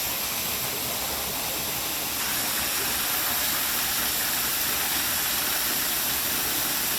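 Creek water rushing, a steady hiss of flowing water that grows a little louder about two seconds in.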